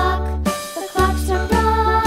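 Background music with a steady beat, a new bass note about every half second.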